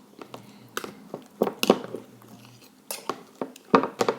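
Metal knife clinking and tapping against a bowl at irregular intervals while paint colour is worked into slime.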